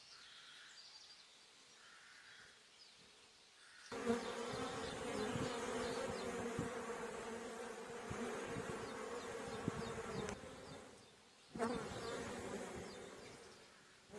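Honeybees buzzing over an opened hive: a dense, steady hum that starts suddenly about four seconds in, fades for a moment about eleven seconds in, then comes back.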